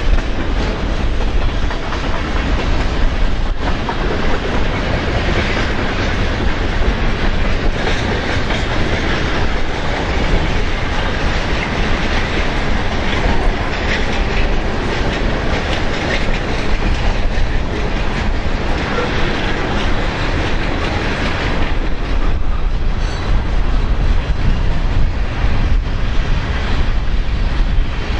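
Mixed freight cars of a Canadian National train rolling past with steady wheel-on-rail noise, and strong gusting wind buffeting the microphone.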